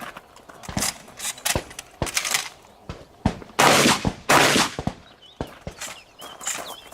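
Shotgun firing a string of shots at irregular spacing during a practical-shooting stage. There are several sharp reports, and two longer, louder blasts a little past halfway.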